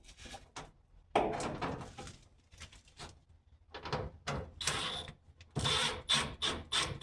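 Irregular knocks and scraping as small plastic parts and tools are handled, with a sharp knock about a second in and a run of clatter in the last few seconds.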